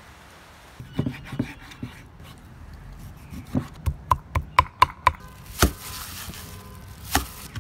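Kitchen knife chopping raw beef on a wooden chopping board: scattered knocks, then a quick run of chops about four a second with a slight ring. Two louder knocks and some rustling follow near the end.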